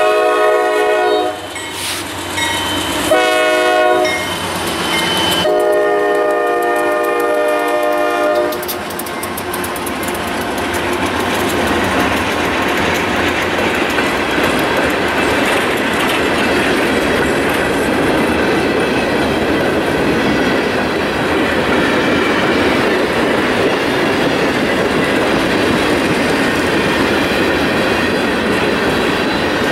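Norfolk Southern freight locomotive's multi-chime air horn sounding close by. A long blast ends about a second in, a short one comes around three seconds, and a long one runs from about five to eight and a half seconds, the close of the long-long-short-long grade-crossing signal. Then the train's freight cars, mostly hoppers, roll past with a steady rumble and wheel clatter.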